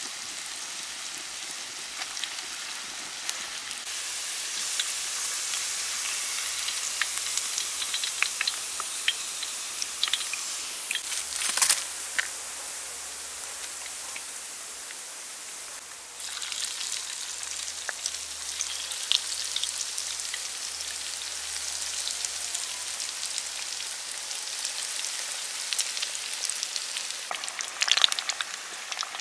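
Food deep-frying in hot oil: a steady sizzling hiss dotted with crackling pops, with a few louder clicks.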